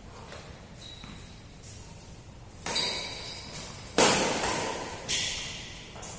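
Badminton rackets striking a shuttlecock in a doubles rally: three sharp smacks about a second apart, the middle one the loudest, each ringing on in the hall's echo.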